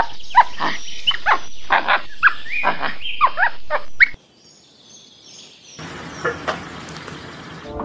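Monkey calling in a rapid series of short, high, rising and falling cries, which stops abruptly about four seconds in. Quieter background noise follows, with a couple of faint sounds.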